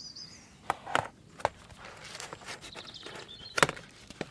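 Several sharp taps and knocks, about four in all with the loudest late on, with a bird chirping briefly in the background twice.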